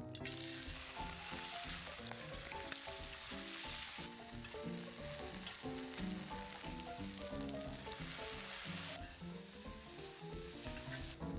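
Meat sizzling as it fries, a dense crackling hiss that eases a little about nine seconds in, over background music.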